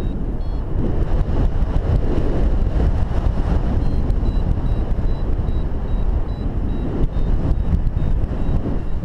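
Wind buffeting the microphone in paraglider flight, with a variometer's short, high beeps repeating off and on, a sign that the glider is climbing in lift.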